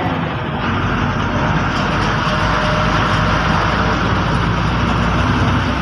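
Diesel engine of a KSRTC bus running steadily under way, with a low engine hum and road and tyre noise.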